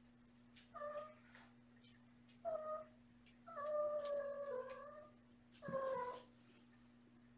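Kitten meowing four times: three short meows and one longer, wavering meow in the middle.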